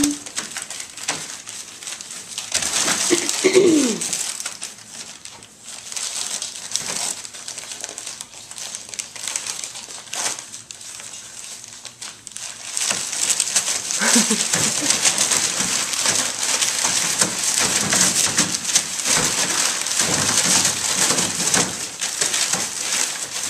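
Beagle puppies play-fighting on newspaper: the paper rustling and crinkling under them, louder and continuous from about halfway through, with a few short puppy growls, one falling in pitch about three and a half seconds in.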